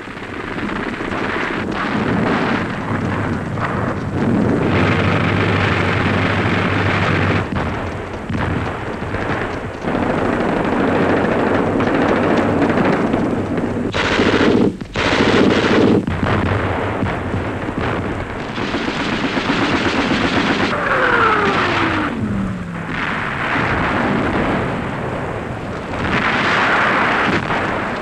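Battle sound: dense machine-gun and rifle fire crackling, with heavier booms, and a descending whistle about three quarters of the way through.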